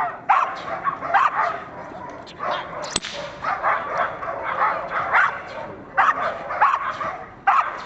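Groenendael (Belgian Shepherd) barking repeatedly in quick runs during protection training, with a short pause near the middle.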